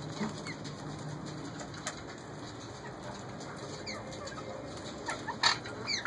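Parakeets giving scattered short chirps and squawks, some falling in pitch, with one loud sharp call about five and a half seconds in.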